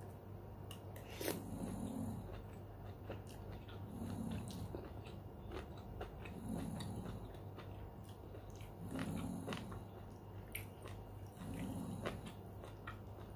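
Close-up eating sounds of beef soto with noodles: chewing, slurping, and clicks of a spoon and fork against the bowl. A low groan from an elderly woman repeats about every two and a half seconds.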